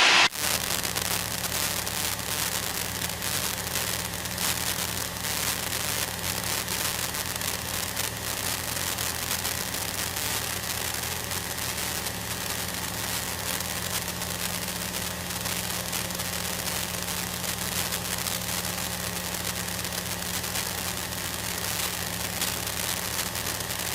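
Steady drone of a light single-engine plane's 100-horsepower engine and propeller, heard inside the cabin during the climb: an even low hum over a constant hiss.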